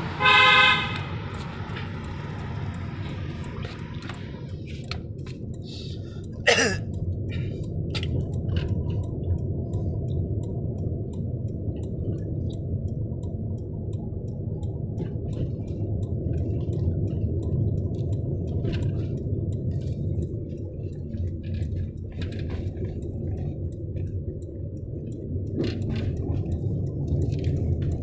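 Steady low road and engine rumble inside a moving car's cabin on a toll-road ramp. A loud pitched tone sounds for about a second at the start, and a quick falling sweep comes about six seconds in. Faint scattered clicks run throughout.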